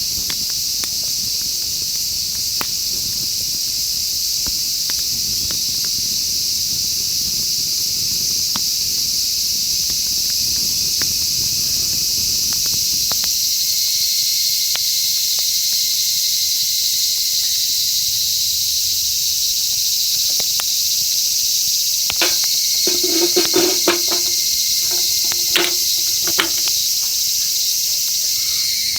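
Steady outdoor chorus of insects, a dense high-pitched shrill that never lets up, with scattered short clicks through it. A few brief pitched sounds come in about two-thirds of the way through.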